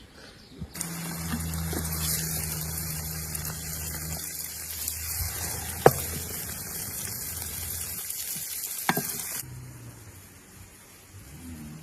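Food sizzling as it fries in hot oil. The sizzle starts abruptly about a second in and cuts off sharply about three-quarters of the way through, with two sharp knocks, like a utensil against the pan, during it.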